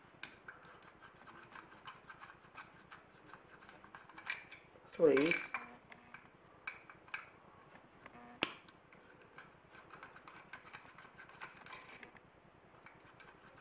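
Screws being turned out of a metal fuse terminal block with a hand screwdriver: faint, irregular small clicks and metal scraping, with one sharper click a little past the middle.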